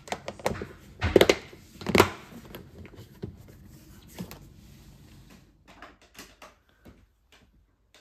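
Plastic lid of a clip-lock food-storage container being pressed down onto the box, with sharp plastic clicks and snaps about a second and two seconds in, then quieter handling.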